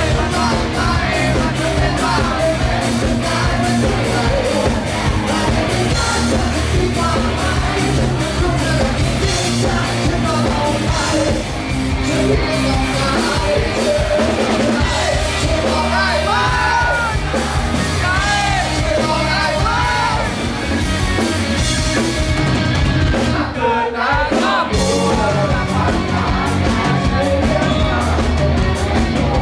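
Live rock band playing loud: electric guitars, bass and drums, with a male singer. The band thins out briefly near the end before coming back in.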